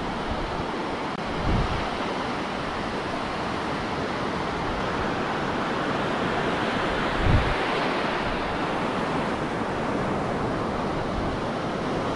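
Surf breaking and washing up over a shallow sandy beach, a steady rush that swells about midway as a wave comes in. Two brief low thumps, one about a second and a half in and one about seven seconds in.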